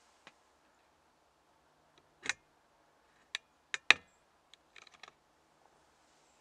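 Handling noise close to the microphone as the camera is panned: a brief rustle about two seconds in, then a few sharp clicks and knocks, the loudest just before four seconds, followed by a cluster of fainter ticks.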